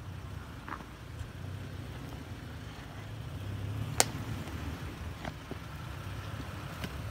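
Toyota Tacoma pickup crawling slowly over a rutted, rocky dirt trail, its engine running low and steady, with a single sharp crack about four seconds in.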